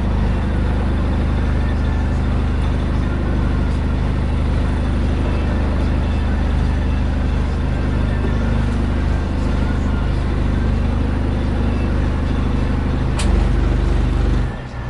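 Sailboat's inboard engine running steadily at low speed. Near the end there is a single click, then the engine sound drops off abruptly.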